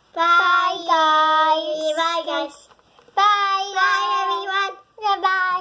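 A child singing in three phrases of long, held notes, the second and third shorter than the first.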